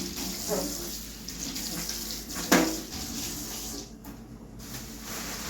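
Water running from a kitchen tap into a sink, with one sharp knock about two and a half seconds in. The hiss of the water drops out briefly near four seconds in.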